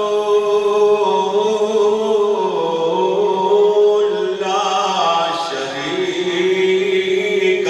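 A man's voice chanting a melodic religious recitation, holding long notes that slide between pitches, with a brief break and a new rising phrase a little past halfway.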